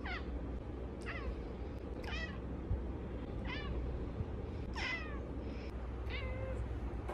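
A cat meowing repeatedly: about six short, high mews, each falling in pitch, roughly one a second, over a steady low background hum.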